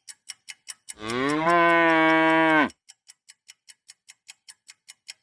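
A cow mooing: one long, level moo lasting under two seconds, with a second moo starting at the very end. A steady clock-like ticking, about four ticks a second, runs underneath.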